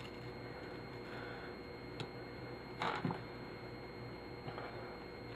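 Small clicks and a short clatter of turntable parts being handled during dismantling, the loudest about three seconds in, over a faint steady hum.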